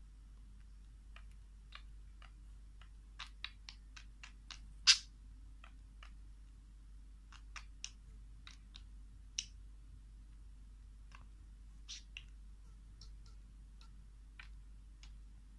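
Budgerigar's beak clicking and tapping as it nibbles at a bare toe: irregular small ticks, with one sharper, louder click about five seconds in.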